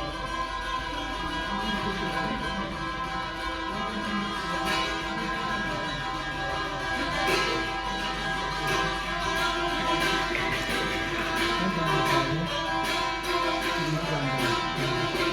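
Saz, the long-necked Turkic lute, played solo: a plucked and strummed melody over steadily ringing drone strings.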